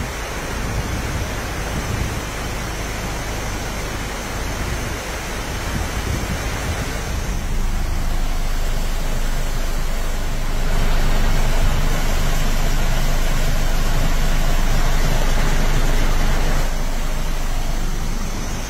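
A vehicle driving through a flooded road: a steady rush of water swishing against the tyres and body, with the engine running underneath. It grows louder about halfway through and eases again near the end.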